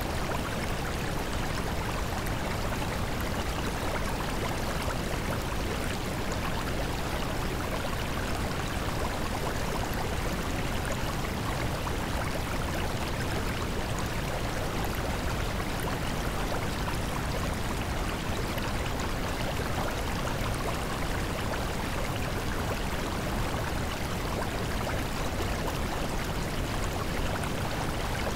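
Steady, even rushing noise, the unchanging masking sound bed of a subliminal affirmation track.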